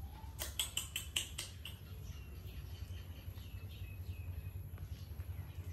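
A few sharp clicks of handling near the start, then a baby macaque giving a run of thin, high squeaks, over a low steady hum.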